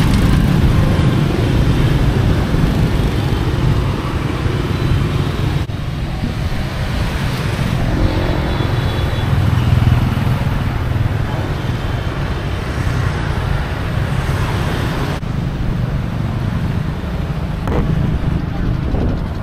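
Road traffic of motor scooters and cars passing close by, a steady loud wash of engine and tyre noise.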